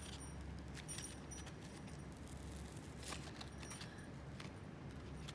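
A few light metallic clinks with a short, high ring, about a second in and again around three seconds in, over a low steady hum: a metal wok being handled and rubbed with a sanding sponge.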